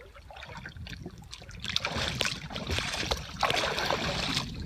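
Sea water sloshing and splashing against the hull of a small outrigger boat. It is quiet at first, then grows louder about two seconds in and surges twice.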